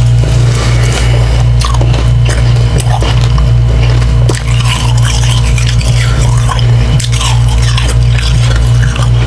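Soft slushy ice, refrozen humidifier frost chunks dipped in water, being bitten and chewed with soft wet crunching, over a loud steady low hum.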